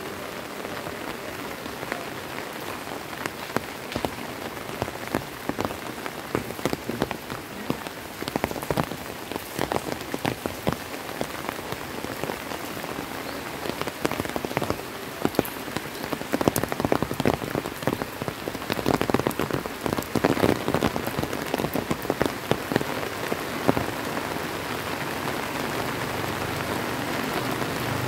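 Heavy rain falling steadily, with many sharp clicks of close drops striking nearby. Near the end a motorbike engine comes up under the rain, growing louder as it approaches.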